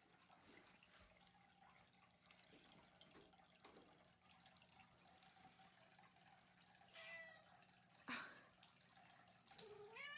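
A cat meowing faintly, a short call about seven seconds in and another rising one near the end, with a sharp knock between them over a quiet room with a faint steady hum.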